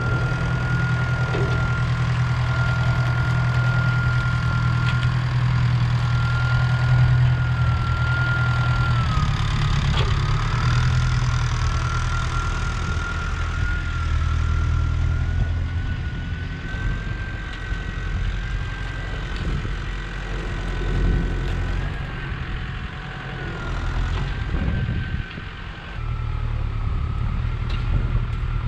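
Farm tractor's diesel engine running under work as it pushes burnt brush into a pile with its box, with a steady high whine held over the low engine note. The sound drops for several seconds past the middle, then rises again near the end.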